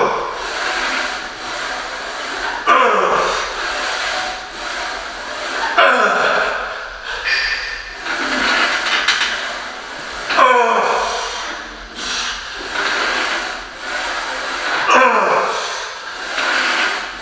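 A heavy Smith-machine squat set with resistance bands: a loud sound falling in pitch comes with each rep, four times, spaced three to four and a half seconds apart and further apart near the end as the set grinds out, over a steady noisy background.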